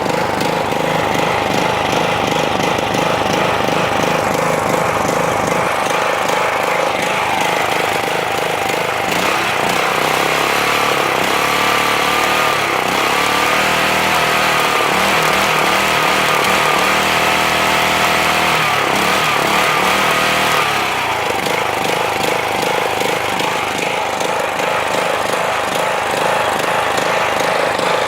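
Troy-Bilt Pony riding mower's small gasoline engine running, its speed wavering and shifting unevenly for a stretch in the middle before settling. It is not idling correctly, which the owner suspects comes from a large new fuel filter making the fuel line dip.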